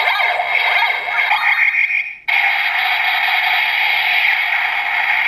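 Electronic sound effects played through the small speaker of a DX GabuGabuRevolver toy morpher. A busy burst of effect sound is followed, after a short break about two seconds in, by a steady, buzzy looping effect.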